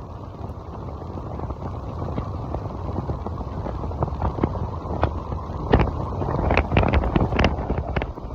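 Wind rushing and buffeting over the microphone on a moving electric motorcycle, growing louder through the stretch, with sharp crackling gusts in the second half. No motor whine stands out above the wind.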